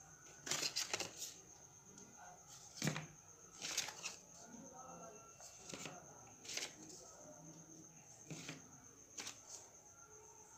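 Stiff folded chart paper being handled and set down: faint, scattered rustles and light taps, about eight of them a second or so apart.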